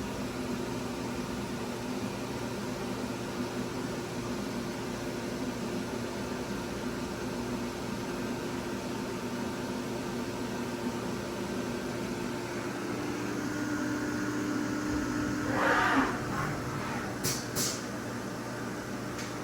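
Steady hum of a powered-up CNC vertical mill, with several steady tones. About sixteen seconds in comes a short rising whir, and a moment later two sharp clicks.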